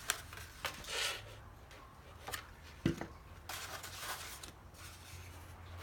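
Stiff paper rustling, with a few light clicks and taps, as a paper rose petal is handled and pressed onto the glued bud, over a faint steady low hum.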